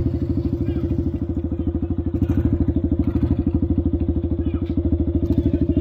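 Honda 400EX's single-cylinder four-stroke engine idling steadily: a fast, even putter, a little over a dozen firing pulses a second.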